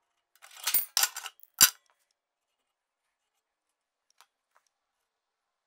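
Flat steel bar scraping and clattering against a belt grinder's steel tool arm, then one sharp metal clank about a second and a half in, as the bar is fitted in place.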